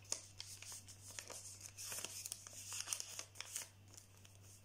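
Paper rustling and crinkling faintly as a folded strip is pinched and creased between the fingers, in short irregular scrapes and ticks, over a faint steady low hum.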